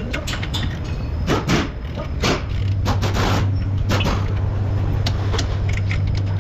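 Metal parts and tools clinking and knocking in a car repair workshop during work on a front wheel bearing, with a machine's steady low hum that starts about two and a half seconds in.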